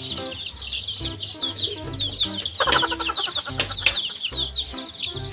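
Many domestic chicks peeping together, a constant stream of quick, high cheeps that each slide down in pitch, over background music.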